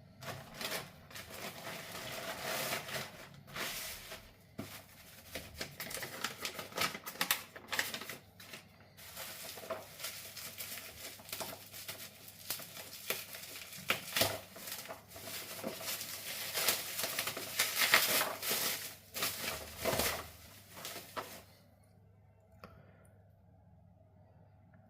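Packaging of a wireless lavalier mic kit being opened and handled: a dense, irregular run of rustles and sharp clicks that stops about three-quarters of the way through, leaving faint room tone.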